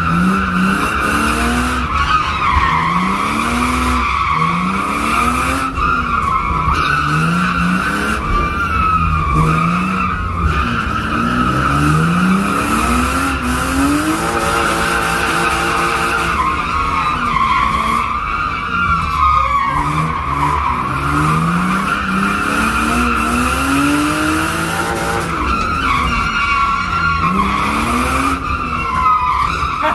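Car drifting, heard from inside the cabin: the tyres squeal in a continuous, wavering screech while the engine revs rise and fall every couple of seconds.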